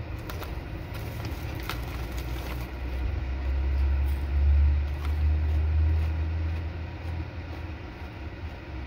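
Plastic chip bag crinkling as it is handled in the first two or three seconds. Under it runs a low rumble that swells in the middle and fades.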